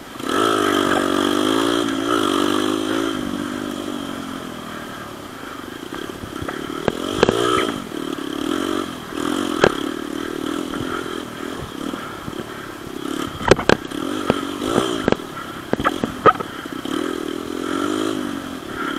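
Dirt bike engine revving, its pitch rising and falling over and over, loudest in the first few seconds, with scattered sharp knocks and clatter.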